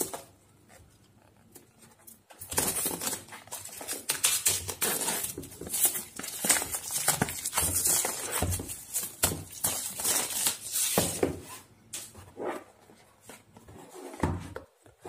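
Clear plastic shrink-wrap being torn and peeled off a cardboard box, crinkling and crackling. It starts about two seconds in and thins out near the end to lighter handling of the box.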